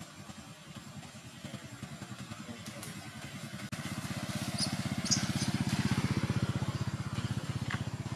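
A vehicle engine running with a fast, even low throb, growing louder through the first half and staying loud to the end.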